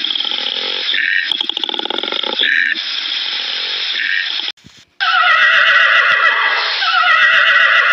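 Koala bellowing: a rough, rapidly pulsing call broken by short drawn-in snorts about every second and a half. After a brief break, a horse whinnies twice, louder, each call falling in pitch.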